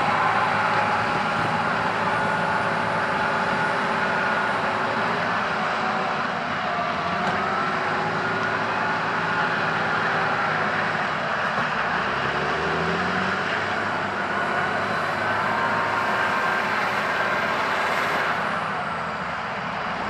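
John Deere 8400T tracked tractor's diesel engine running steadily under load while the tractor is bogged down in deep mud with its tracks sunk, and its revs rise briefly a little past the middle.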